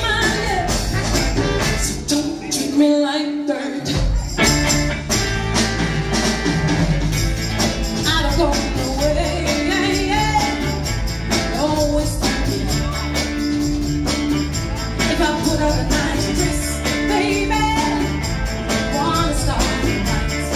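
Northern soul band playing live, with a woman singing lead over drums, bass, guitars, horns and congas. Shortly after the start, the low end drops out for about a second, and then the full band comes back in.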